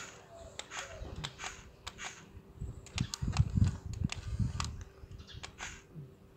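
Toy excavator's motorised arm at work: irregular plastic clicks and rattles, with a run of low thumps about three to four and a half seconds in.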